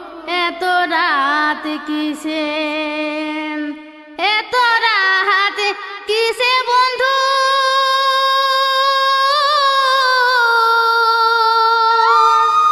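A woman singing a jhumur folk song with backing music, in quick ornamented phrases that bend up and down. From about seven seconds in, a single long note is held for several seconds with a slight waver, and a new higher line enters near the end.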